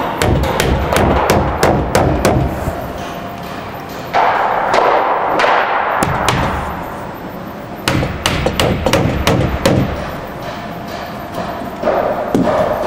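Hammer driving finishing nails into a wooden door frame: runs of sharp blows, a pause in the middle, then more blows near the end.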